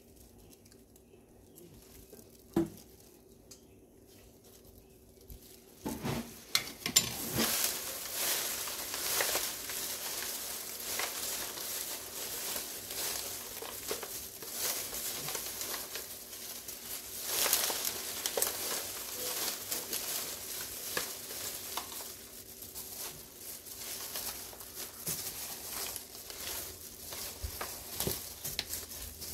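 Dry rice paper strips tossed by hand in plastic gloves in an aluminium foil pan: continuous crinkling and rustling with many small crackles, starting about six seconds in after a quiet stretch broken by a single click.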